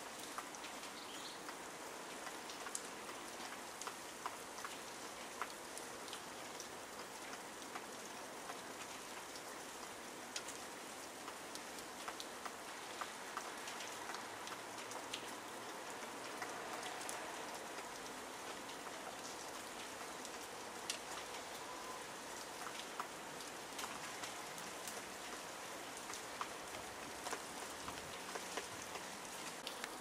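Heavy falling snow pattering on surfaces: a steady hiss dotted with many small scattered ticks.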